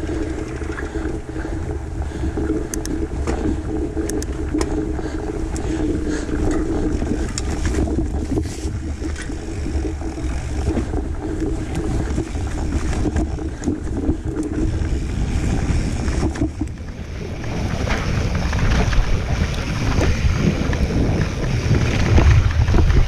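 Mountain bike riding a dirt forest trail: wind buffeting the camera microphone over the rumble of knobby tyres and small rattles from the bike. A steady hum drops out about 17 seconds in, and the rumble then turns rougher and louder.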